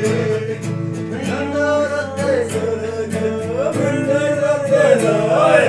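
A man singing a Himachali ainchali folk song, his voice holding long wavering notes, over steady strumming on an acoustic guitar.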